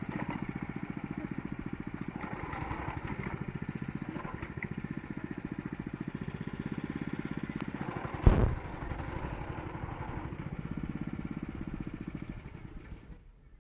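Rice transplanter's small engine running steadily with a fast, even chugging, one loud thump about eight seconds in, then fading away near the end.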